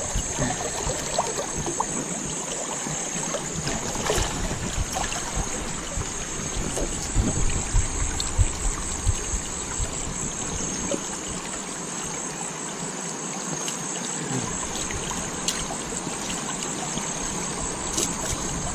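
Shallow stream water flowing and trickling steadily, close to the microphone, with a few brief knocks.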